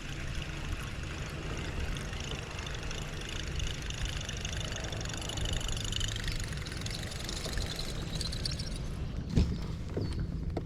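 A buzzbait being retrieved on a fishing reel, heard as a fast, finely rhythmic whirring clatter for several seconds in the middle, over a steady low hum. There is one sharp knock about nine seconds in.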